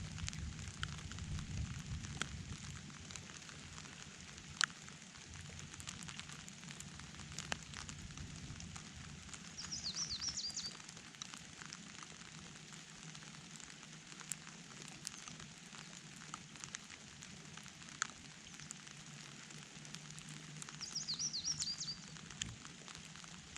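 Steady light rain pattering, with frequent sharp drips striking close by. A bird sings a short high chirping phrase twice, about ten seconds in and again near the end.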